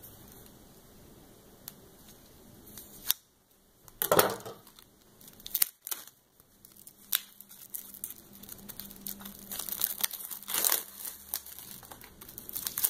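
Plastic shrink-wrap being torn and peeled off a boxed CD case, crinkling and crackling in sharp bursts at first, then crinkling more densely through the second half.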